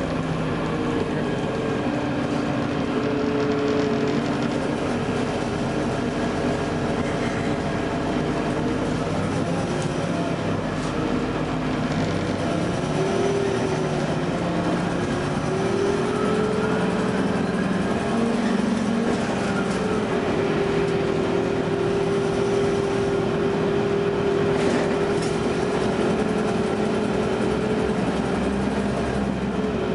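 2009 Gillig Low Floor hybrid bus (Cummins ISB diesel, Allison EP40 hybrid drive) running, with a steady whining tone over its rumble. The whine dips in pitch and climbs back about halfway through.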